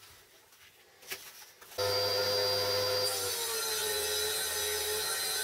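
Table saw switched on about two seconds in and running steadily, its blade cutting through an MDF board with the pitch dipping slightly under the load.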